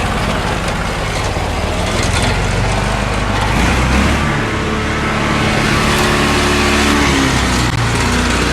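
Engine running loudly and steadily, its pitch shifting a few times.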